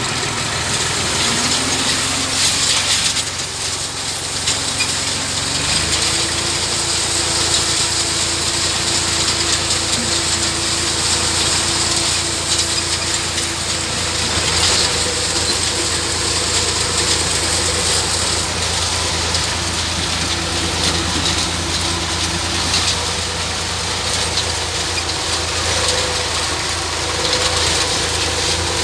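IMT 539 tractor's three-cylinder diesel engine running steadily, its note stepping up slightly about six seconds in.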